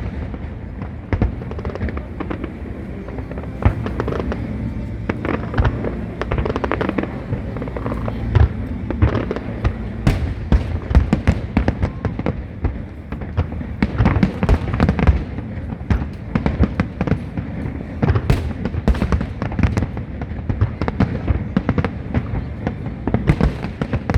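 Aerial fireworks going off in quick succession, a dense run of sharp bangs and crackles over a continuous low rumble.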